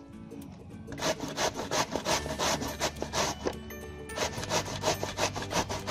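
Peeled raw green mango rubbed up and down on a metal box grater: repeated rasping strokes, about three or four a second, starting about a second in.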